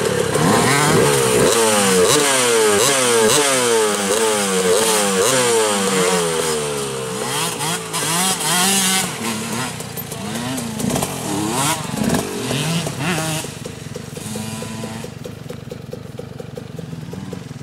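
Dirt bike engine revving up and down repeatedly as the rider throttles across a sandy track, the pitch rising and dropping again and again; in the second half it grows quieter and fainter as the bike moves away.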